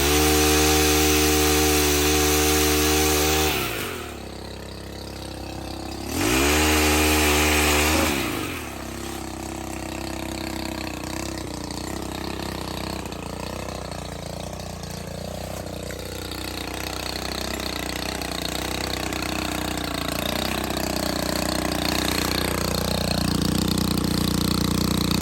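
Stihl HT 131 pole pruner's small four-stroke 4-MIX engine held at full throttle, then dropping to idle at about four seconds. It is revved up again for about two seconds, then falls back to a steady idle for the rest.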